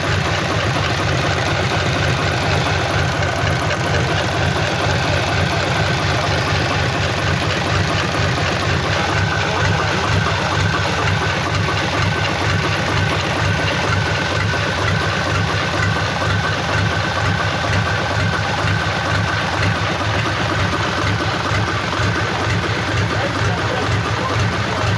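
Freshly rebuilt Mitsubishi Fuso D16 diesel engine idling steadily while it runs in after the rebuild.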